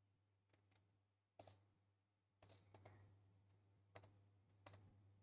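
Faint computer mouse clicks, scattered and some in quick pairs, over near silence.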